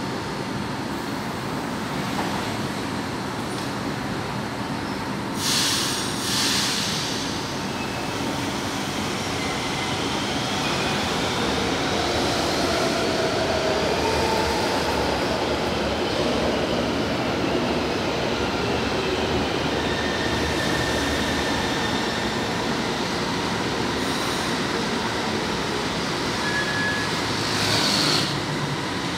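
São Paulo Metro electric trains running through the station: a steady rumble of wheels and motors, with a whine that rises in pitch as a train gets under way. A short hiss of air comes about six seconds in, and another comes near the end.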